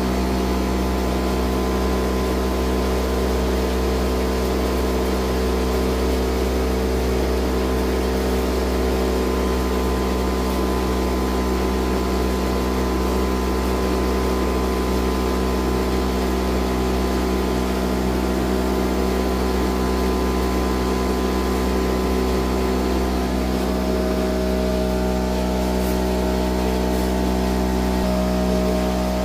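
Homemade cotton candy machine running, its motor spinning the brass-and-Teflon heating head with a steady hum, its tone shifting slightly near the end.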